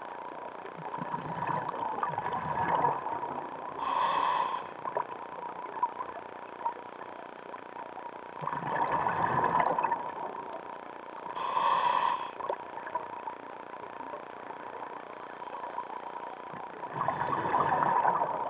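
Scuba diver breathing through a regulator underwater: a bubbling exhale of about two seconds, then a short hissing inhale, repeating about every eight seconds (two full breaths, with a third exhale near the end). A faint steady high tone runs underneath.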